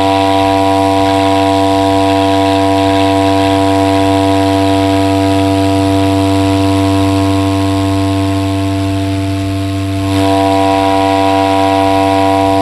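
Homemade PVC air horn with a plastic funnel bell, driven by a PVC air cannon pumped to 85 PSI and released slowly: one long, steady, loud low blast. It sags slightly about nine seconds in and then comes back up.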